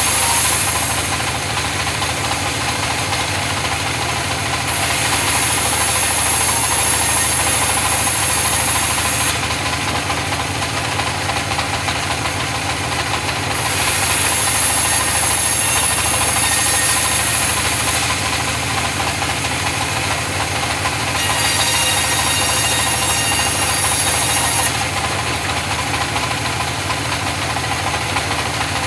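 Engine-driven sawmill running steadily while sawing mahogany, with a high hiss that comes and goes in stretches of about four seconds.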